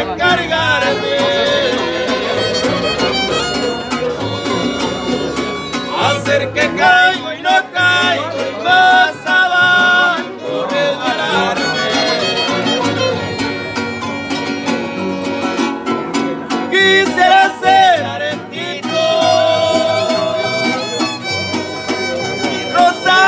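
Instrumental interlude from a harp ensemble: a violin playing the melody over low bass notes from a large wooden harp and a strummed small guitar, in a lively rhythm.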